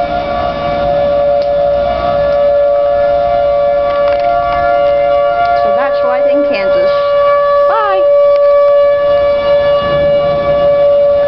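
Outdoor tornado warning siren holding a steady two-note tone, the two pitches sounding together without rising or falling.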